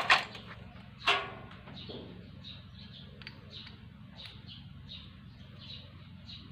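Sharp metal clinks of a new piston and its parts being handled and fitted at an opened motorcycle engine, three in about the first second, the last ringing briefly. After that, faint high ticks repeat a few times a second.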